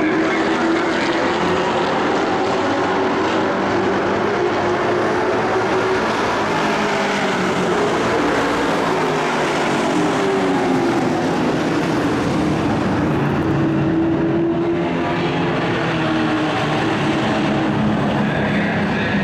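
Several race trucks' engines running on a dirt oval, a continuous loud drone whose pitch rises and falls as they come round and pass.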